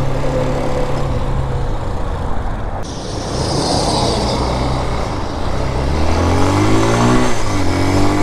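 Vitacci Raven 250 dirt bike's air-cooled 250cc engine running under way, then revving up about six seconds in, easing briefly and pulling up again near the end as the bike accelerates.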